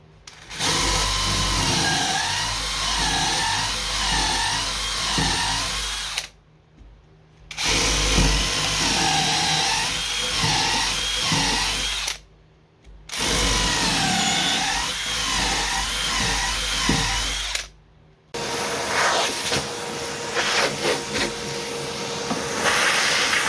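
Electric drill with a long 3/8 inch bit cleaning out the perimeter bolt holes, run in three bursts of about five seconds each, its pitch wavering as the load changes. Near the end comes a stretch of clicks and scraping with a steady hum under it.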